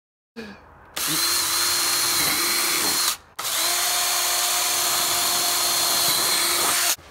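Power drill running twice, about two seconds and then about three and a half seconds, with a short stop between, boring holes through the side of a plastic bucket. It makes a steady whine.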